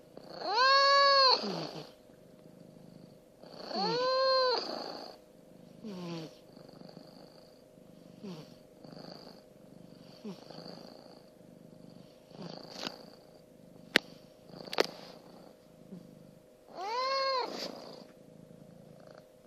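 Two domestic cats breathing at rest: one purring loudly, the other snoring faintly. Three times, on a breath a few seconds apart, a loud whistling tone rises and falls in pitch over about a second.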